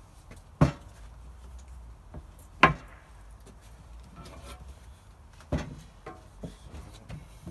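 Foam-padded wooden boards knocked against a wooden tabletop as they are handled: three sharp knocks, the first about half a second in and the others about two and three seconds apart, with quieter taps between.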